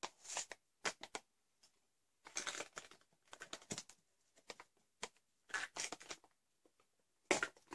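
Crinkling and rustling of a Trek'n Eat freeze-dried meal pouch as it is handled and a spoon scrapes the rehydrated potato stew out of it, in short irregular bursts.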